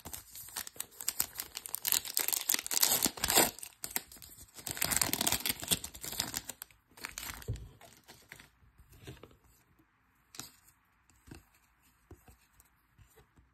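Wrapper of a Topps Chrome trading-card pack crinkling and tearing as it is ripped open by hand, in two long stretches, then trailing off into a few faint rustles.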